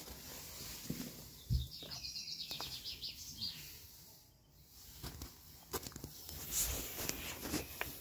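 A small bird singing a quick trill of rapid high notes about two seconds in, over outdoor background hiss, with scattered knocks and a low thump from the handheld camera.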